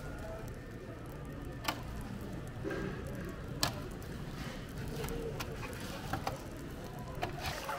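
Brittle sheets of crispy scorched rice crust (nurungji) being broken by hand on a metal tray: a handful of sharp cracks and clicks, coming closer together near the end, over a low steady background hum.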